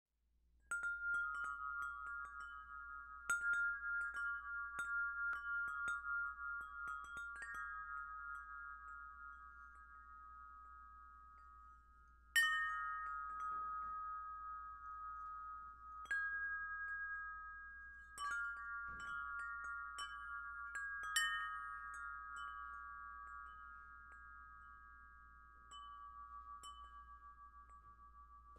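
Aluminium-tube wind chime ringing: the striker knocks the tubes at scattered moments, sounding a few high notes together that ring on and slowly fade. The loudest strikes come about twelve seconds in and again near twenty-one seconds.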